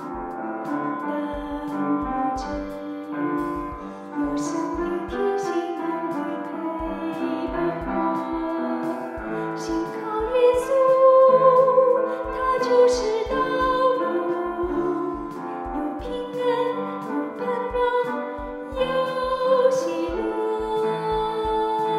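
Solo voice singing a Chinese hymn with piano accompaniment.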